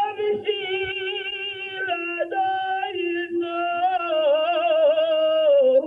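A man chanting a prayer in long, drawn-out notes that waver in pitch, carried over a public-address system, with a lower steady note held underneath. The chant breaks off briefly twice.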